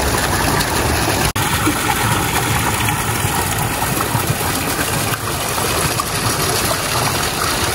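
Stone fountain's water running down a pile of rocks and splashing into its basin: a steady, even rush, cut off for an instant about a second in.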